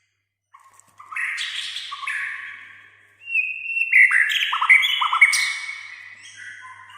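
White-rumped shama (murai batu) singing: after a brief pause, a fast run of varied whistled phrases and chattering notes starts about a second in, growing louder and fuller through the middle before easing off near the end.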